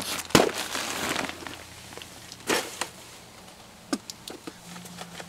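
Handling noise from gear bags being moved about: rustling with a few sharp clicks, the loudest just under half a second in, the rustling dying down after about a second.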